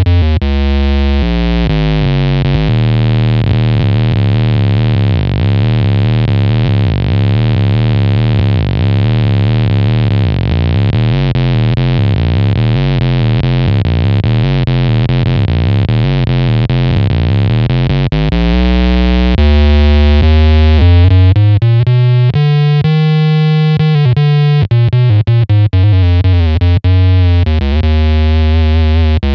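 Electric guitar played through an EarthQuaker Devices Bit Commander analog octave synth pedal: a buzzy, synth-like tone with a very strong sub-octave two octaves down, playing a line of changing notes with some string bends.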